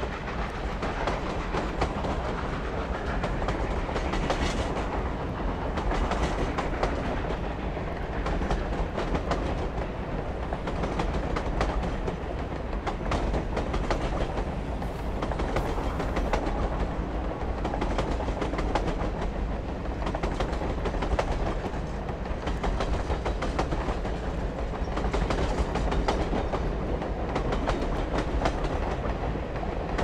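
Passenger cars of the steam-hauled American Freedom Train rolling steadily along the track, a continuous rumble with dense clicking of wheels over rail joints, heard from an LP record.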